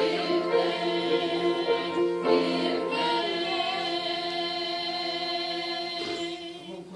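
Music of long held chords, several notes sounding together, with a short break about two seconds in, dying away about six seconds in.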